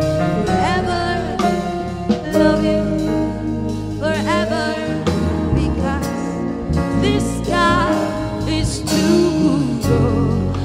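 Gospel worship song: a woman singing long, wavering lines with vibrato over a sustained instrumental backing.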